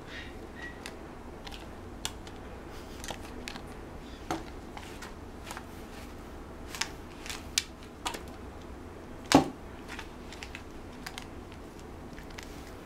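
Scattered light taps and clicks as a puppy moves about on a towel-covered grooming table, with one louder knock about nine seconds in.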